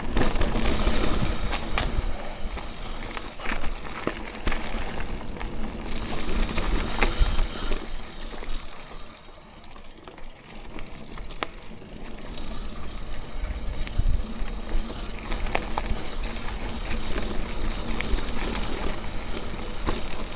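Mountain bike ridden over a rough, rocky trail: tyres crunching over rock, with frequent sharp clicks and rattles from the bike and a low rumble. It eases for a couple of seconds near the middle.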